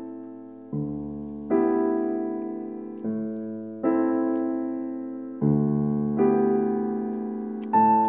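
Slow piano music with no voice: a low bass note, then a chord a moment later, the pair repeating about every two and a half seconds, each note ringing and fading.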